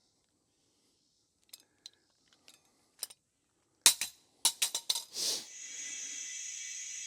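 A few light tool clicks and clinks, then a sharp clack and a quick run of knocks about four seconds in. These give way to a steady hissing whir of air being pumped into the plugged tire to bring it up to full pressure.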